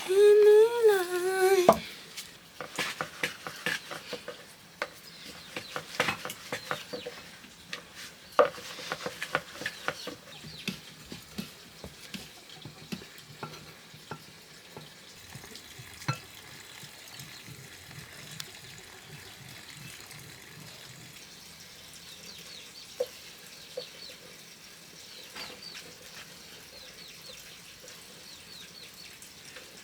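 A small child's voice cries out briefly at the start, then utensils clink and knock, over a faint steady sizzle of bread dough frying in hot oil.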